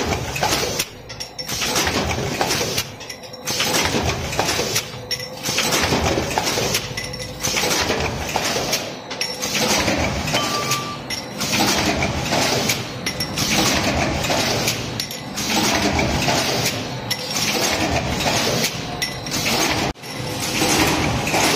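Stamping press running a progressive die: repeated metallic clanking and clinking, with a short lull about every two seconds as the press cycles.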